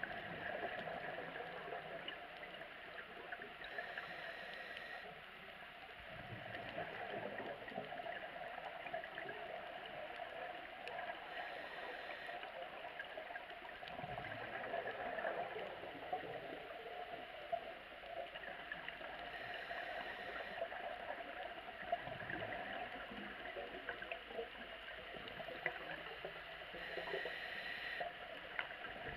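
Underwater ambience from a scuba diver's regulator: gurgling exhaled bubbles, with a short hiss of an inhaled breath about every eight seconds.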